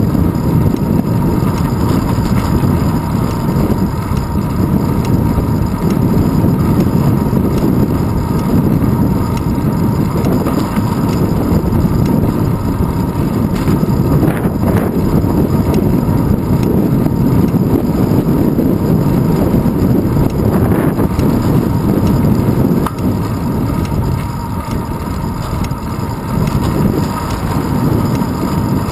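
Wind buffeting a handlebar-mounted GoPro Hero 2 on a moving bicycle: a steady low rumble of rushing air and road noise, with a faint thin whine running through it.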